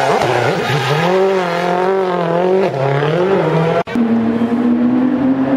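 Rally car engine revving hard, its note rising and falling with the throttle. The sound breaks off abruptly about four seconds in, and an engine note then climbs steadily as the car accelerates.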